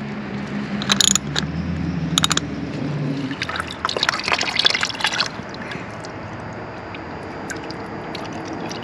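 Engine oil splashing and trickling into a drain pan as the oil filter comes off, with a couple of sharp ratchet clicks in the first two seconds. The splashing is busiest around four to five seconds in, then thins to a quieter trickle.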